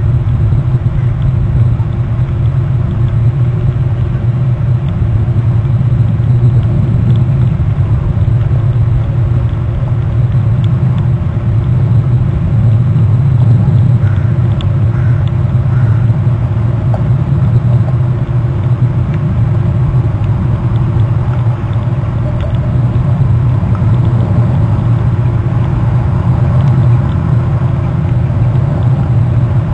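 A steady loud low rumble, with a few faint short higher notes about halfway through.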